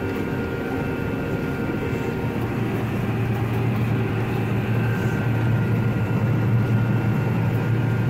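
Combine harvester running steadily while cutting wheat, heard from inside the cab: a continuous machine drone with several held hums. The low hum grows louder about halfway through.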